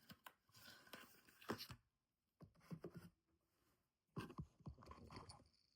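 Faint handling noise from a gift box being moved and turned over: light scrapes and small clicks in three short bouts.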